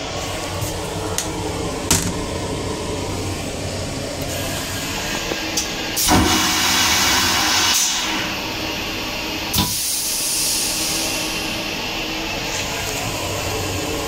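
M9 railcar toilet flushing: a click about six seconds in, then a loud rushing hiss for about two seconds that stops abruptly, and another click near ten seconds. A steady rumble of the train runs underneath.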